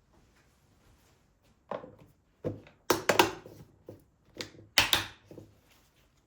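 Several knocks and clunks of hard objects being handled and set down, loudest in a cluster about three seconds in and again near five seconds.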